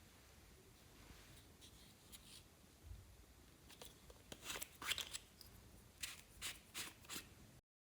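Slime being handled: quiet at first, then scattered soft clicks and crackles from about four seconds in, cutting to dead silence just before the end.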